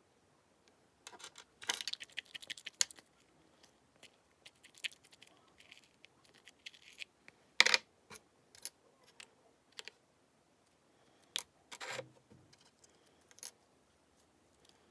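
Irregular small clicks, taps and short scratchy rustles from small objects and craft materials being handled, busiest about two seconds in, with sharp clicks near the middle and again near the end.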